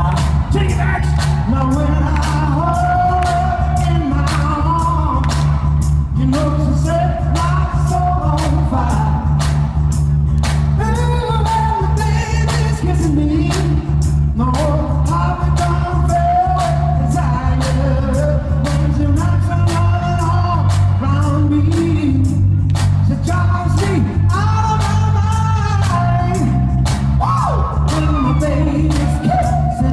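Live rock band playing a soul-rock song: male lead and backing vocals over a heavy bass line, drums and keyboards, loud and steady throughout.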